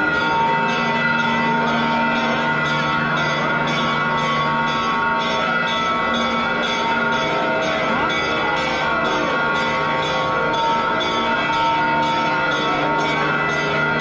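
Church bells pealing rapidly and without pause, many notes ringing over one another, in celebration of the Holy Fire's arrival, over the chatter of a large crowd.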